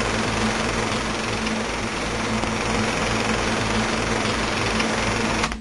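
Film projector running: a steady mechanical whirr and clatter over a low hum, cutting off suddenly at the end.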